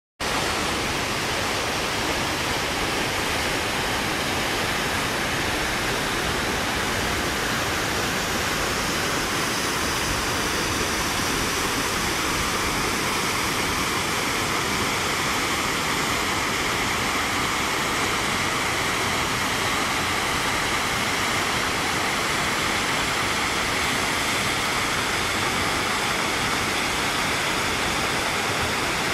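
Waterfall: water pouring down and crashing in a steady, loud rush.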